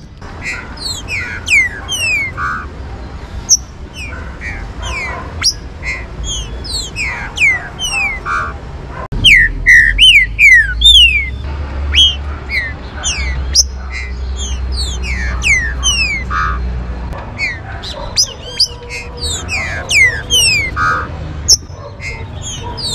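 Green-winged saltator (trinca-ferro) calling and singing: many short, quick falling whistled notes, overlapping and repeated throughout. The notes are loudest about halfway through, over a low rumble that lasts several seconds.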